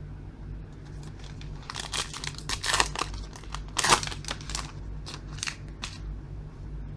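A trading-card pack wrapper being torn open and crinkled: a run of sharp crackles and tears, loudest about four seconds in, over a faint steady low hum.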